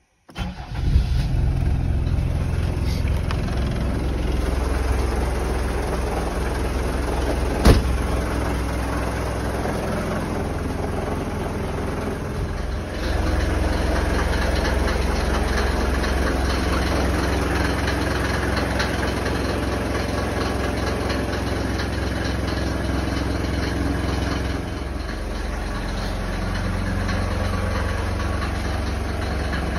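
Mercedes-Benz W124's engine starting after standing four months: it fires up within about a second and settles into a steady idle. A single sharp knock comes about eight seconds in, and from about thirteen seconds the engine is heard from outside beside the car, louder.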